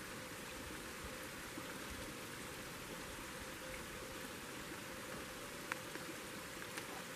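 Steady, even rushing hiss, with a few faint clicks late on.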